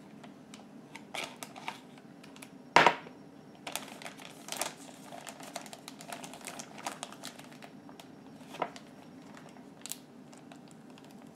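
Plastic zip-top freezer bag being handled and pressed shut along its zipper, with crinkling and small clicks. A single sharp knock about three seconds in, as the glass measuring cup is set down on the wooden counter.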